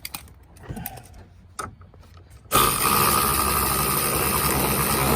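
Cordless power driver running a 10 mm mirror bolt into the door for about three seconds, steady and loud, starting sharply and stopping near the end. Before it come a few light clicks of parts being handled.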